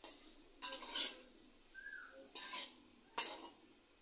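Flat metal spatula scraping and clattering against a metal kadai as soya chunks are stirred and turned in hot oil, in four strokes: at the start, about half a second in, around two and a half seconds, and just after three seconds.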